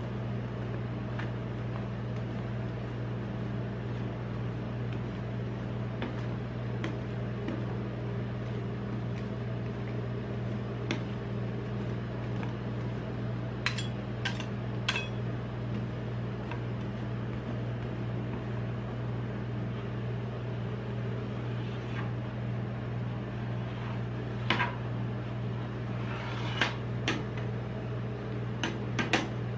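Steady hum of a rolled-ice-cream cold-plate machine's refrigeration unit, with sharp taps and scrapes of a metal spatula against the chilled steel plate, a few about halfway through and a cluster near the end.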